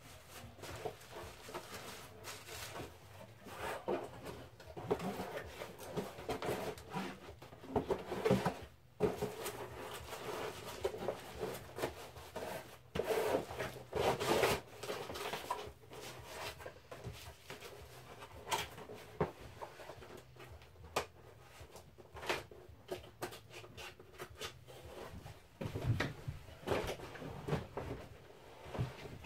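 Someone rummaging through boxes and packaging in search of a small adapter: irregular rustling, scraping and knocking, with a few louder clattering bursts.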